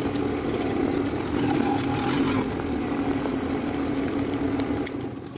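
Motorcycle engine of a tricycle running steadily while under way, quietening just before the end.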